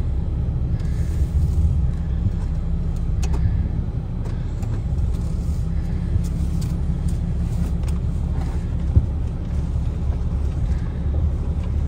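Pickup truck heard from inside the cab while driving slowly: a steady low engine and road rumble, with a few faint clicks and one sharp knock about nine seconds in.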